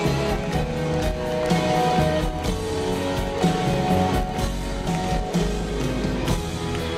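Pop-rock concert music, led by guitar, with a beat.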